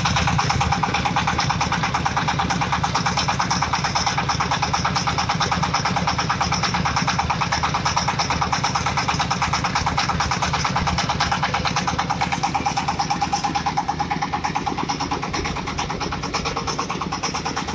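AMEC ZS-1125 single-cylinder diesel engine running steadily with an even, rapid pulsing beat and a steady whine over it.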